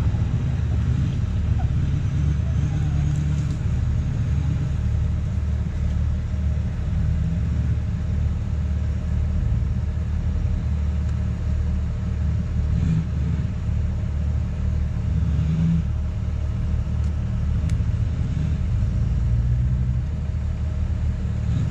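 Ford F-450 pickup's engine running with a steady low rumble as the truck crawls slowly over a rough dirt trail.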